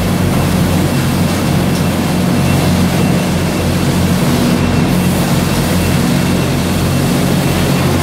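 Steady, loud machine din of a running sugar-pack conveyor line and Multi Baler 300 baling machine, with a constant low hum and a faint thin high whine.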